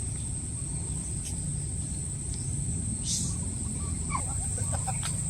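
Steady high-pitched drone of crickets or other insects over a low outdoor rumble, with a short hiss about three seconds in and faint chirps near the end.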